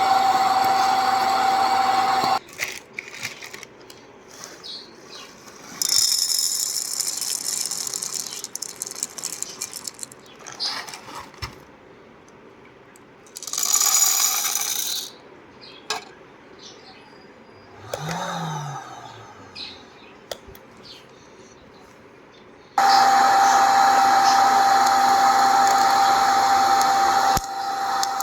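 Electric popcorn machine running with a steady whining hum, switched off about two seconds in. Then come a stretch of rattling, clicks and short clattering bursts, and the machine starts up again with the same hum about 23 seconds in.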